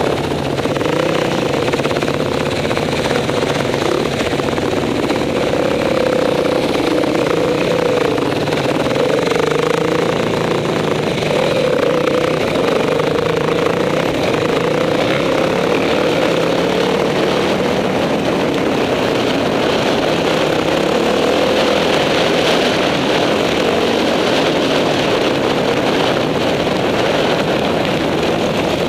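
Enduro motorcycle engine running under way, heard on board, its revs rising and falling steadily as the bike rides along dirt tracks.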